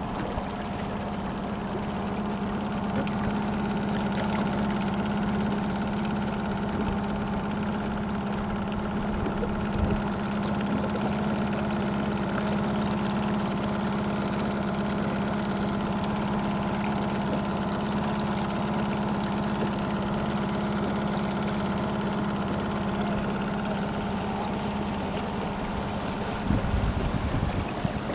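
Small boat's outboard motor running steadily at a constant pitch as the boat moves across the water.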